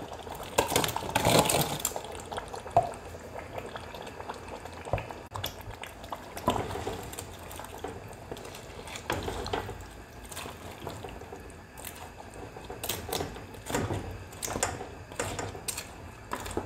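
Fried fish pieces sliding off a plate into a pot of thick tomato stew, with a wet squelching splash about a second in. This is followed by softer, intermittent wet sounds of the fish being moved and stirred into the stew.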